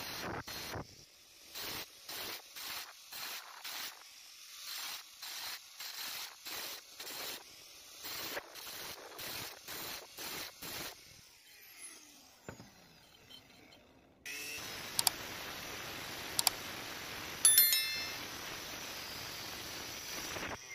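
Angle grinder with a thin cutting disc touched against the rim of a steel saw disc in short repeated bursts, about one and a half a second, cutting notches into its edge. After a pause, a steady hiss with a few sharp clicks and a brief metallic ring takes over.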